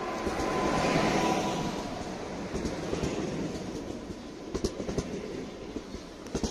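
Newag Impuls electric multiple unit rolling past close by along the platform. Its running noise is loudest as the front cab passes about a second in, then settles into a run of sharp wheel clicks over the rails near the end.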